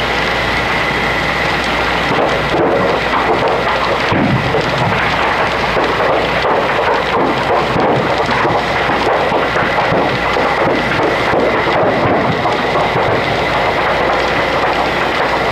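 Loud, steady roar and crackle of a large fire burning through a metal building, with a thin steady high whine underneath.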